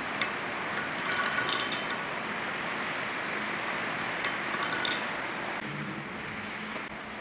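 Metal engine parts clinking as a classic Mini engine's crankshaft and bearing parts are handled: a cluster of ringing clinks about a second and a half in and another near five seconds, over a steady workshop hiss with a low hum.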